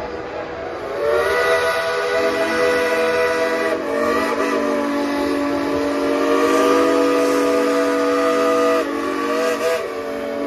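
Several steam locomotive whistles blowing together in long held blasts, a dense chord of tones that swells about a second in and shifts pitch a couple of times as individual whistles stop and start.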